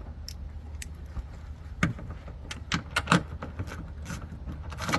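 Irregular sharp clicks and light knocks of hand tools and metal or plastic parts being handled, about a dozen, over a steady low rumble.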